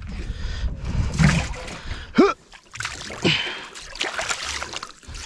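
Water splashing and sloshing, with a short pitched cry that rises and falls about two seconds in.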